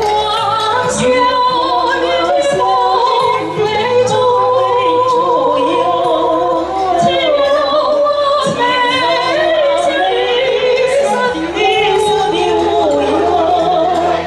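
Two women singing a duet into handheld microphones, with wavering, vibrato-laden voices over instrumental accompaniment.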